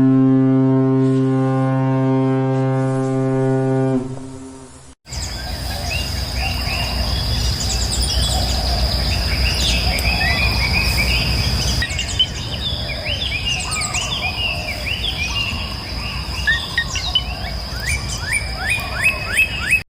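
A deep ship's horn sounds steadily for about four seconds and fades out. After a short break, a chorus of birds chirps and calls over a steady high insect buzz.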